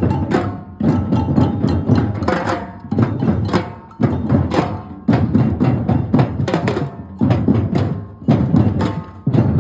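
Batucada percussion ensemble playing a fast, dense rhythm in short phrases, with brief breaks between them.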